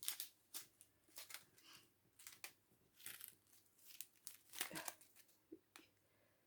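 Small plastic bags of diamond-painting drills crinkling as they are handled, in a run of short, irregular crackles.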